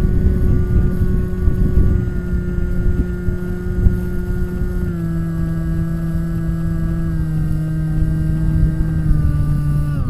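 Bixler RC glider's electric motor and pusher propeller whining steadily in flight, heard from the onboard camera with wind rumble on the microphone. The pitch steps slightly lower about halfway through as the throttle is eased back.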